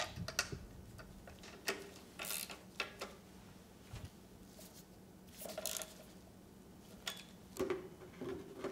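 Faint, scattered clicks and short scrapes of bolts and hand tools worked on an outboard motor's recoil starter, over a faint steady low hum.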